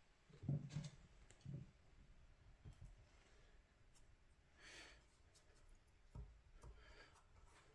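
Near silence, with a few faint low knocks and a soft rustle.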